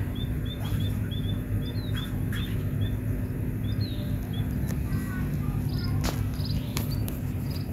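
Small bird chirping: a quick string of short high chirps over the first few seconds, then scattered ones, over a steady low hum. A few sharp clicks near the end as the black plastic polybag is handled.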